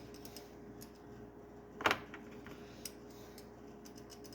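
Small metal tools being handled: a sharp click about two seconds in and a few faint ticks, the sort made by sockets and a wrench knocking together.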